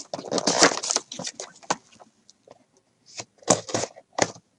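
A sealed trading-card hobby box being slit open with a utility knife and its cardboard flaps pulled back: a dense stretch of crackling from the wrapper and cardboard, then a few short rustles and clicks.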